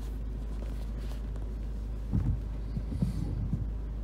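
Steady low rumble inside a parked car with its engine idling, with a few dull knocks about two and three seconds in.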